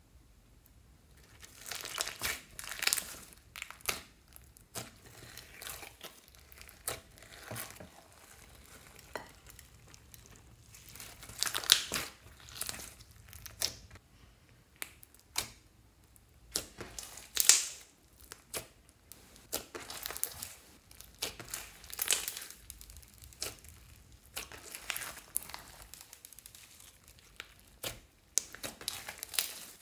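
Clear slime packed with floam beads and glitter being stretched, squeezed and kneaded by hand, giving irregular bursts of wet crackling and popping as the beads and air pockets are pressed.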